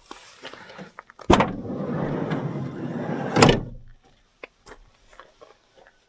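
A van's sliding door: a sharp click of the latch, about two seconds of the door rolling along its track, then a loud bang as it reaches the end of its travel, followed by a few small clicks.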